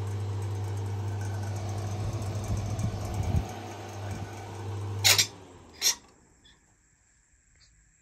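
Dehumidifier fan's 37-watt mains motor running off a variac with a steady electrical hum. Two sharp clicks come at about five and six seconds in, after which it drops to near silence.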